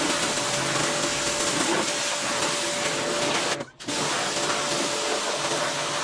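Pressure washer spraying water in a steady hiss, with its motor humming underneath; the sound drops out for a moment about three and a half seconds in.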